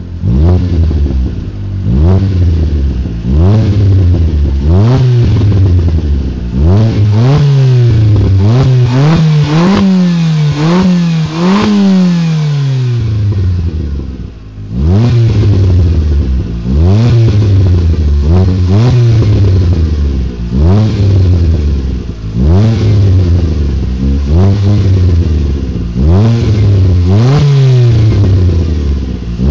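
Fiat Panda 100HP's 1.4-litre 16-valve four-cylinder with a Ragazzon sports exhaust, revved in repeated quick blips about every second and a half. The revs rise and fall back each time, reach higher in the middle, and drop briefly to idle about halfway through.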